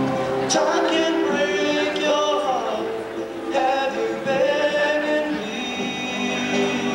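A young man singing into a handheld microphone, amplified through the sound system, holding long notes that glide between pitches.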